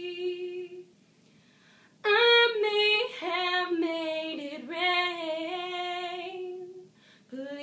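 A woman singing without accompaniment: a held note ends within the first second, then after a short pause she sings a long wordless run of sustained notes that slide between pitches, loudest as it begins.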